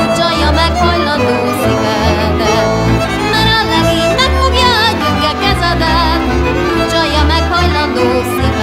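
Hungarian folk band music led by a violin with wavering vibrato, over a steady pulsing bass.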